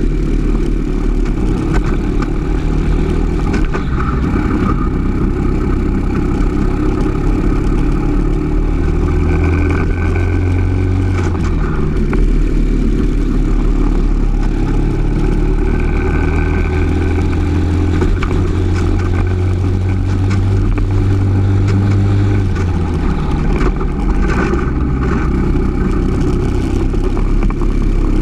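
Briggs & Stratton LO206 single-cylinder four-stroke kart engine heard onboard at racing speed, its revs climbing and falling several times as the kart accelerates and slows for corners.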